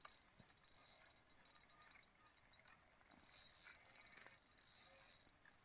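Faint, rapid ticking of a small ice-fishing reel being wound in, the line drawing a hooked fish up to the hole.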